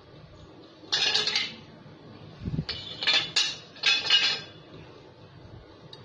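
Steel Lambretta split-rim wheel halves clanking and scraping against each other as one half is lifted off the other, in three ringing bursts: about a second in, around three seconds and around four seconds. A dull bump comes between the first and second bursts.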